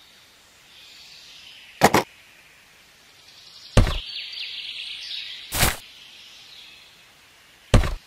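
Four short, sharp sounds about two seconds apart, over a faint, high-pitched outdoor ambience.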